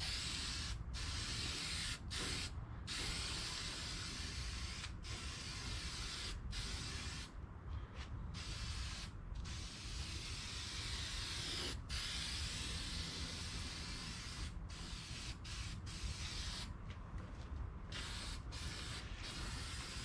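Aerosol spray-paint can hissing in long bursts as the nozzle is pressed, stopping briefly between passes, with two longer pauses of about a second.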